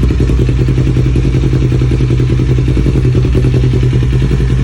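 Kawasaki Ninja 400 parallel-twin engine, fitted with a full aftermarket exhaust and a tune, idling steadily at an even pitch with no revving.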